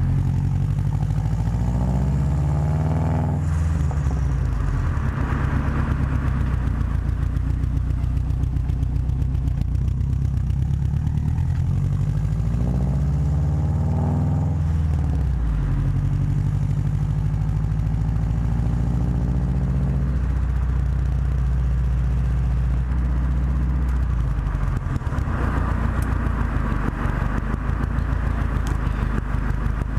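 Subaru WRX turbocharged flat-four engine and exhaust running steadily, with the revs climbing and dropping back sharply twice.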